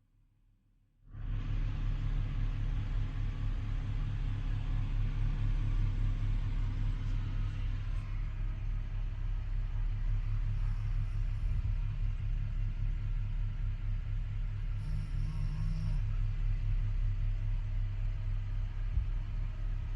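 A steady low rumble that starts suddenly about a second in, after near silence, and runs on evenly without pauses.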